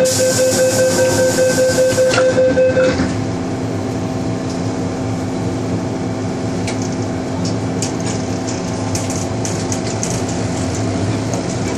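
MTR M-Train door-closing warning: rapid repeated beeps for about three seconds, then the doors shut with a knock. Afterwards the standing train's equipment gives a steady hum.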